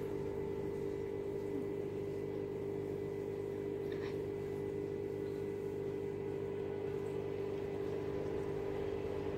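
Steady mechanical hum with several held tones, like a small motor running, and a faint clink about four seconds in.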